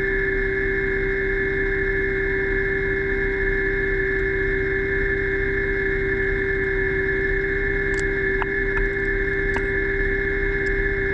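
Electric underwater scooter (DPV) running at steady speed, heard underwater: a constant motor and propeller whine with several steady pitches over a hiss. A few faint clicks about eight to nine and a half seconds in.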